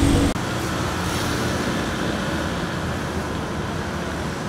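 Steady road traffic noise from car engines and tyres on a city street.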